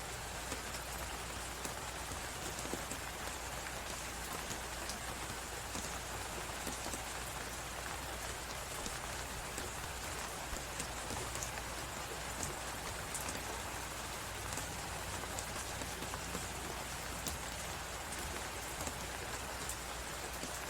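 Crackling wood fire, its small pops scattered irregularly over a steady hiss of blizzard wind.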